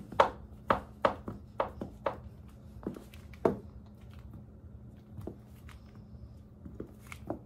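Footsteps of cork-wedge platform sandals on a tile floor: sharp heel strikes, quick and close together for about two seconds, then a few sparser, fainter steps.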